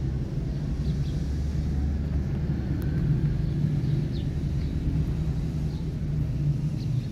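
Steady low mechanical rumble with a constant hum, like a running engine or motor. A few faint, short, high chirps come through about a second in, around four seconds in, and near the end.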